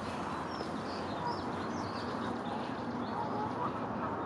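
Small birds chirping repeatedly over a steady background hiss.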